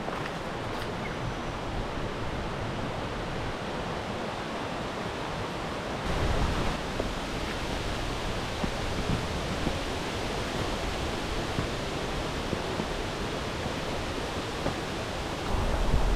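River water rushing steadily, with a brief low rumble about six seconds in.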